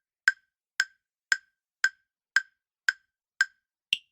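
Countdown-timer sound effect: sharp, even ticks about two a second, the last tick near the end higher in pitch, marking the end of the answering time.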